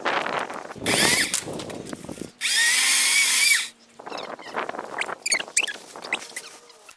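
A chainsaw runs for about a second, its whine rising as it starts and dropping as it stops. Scattered crackling and knocking fall before and after it.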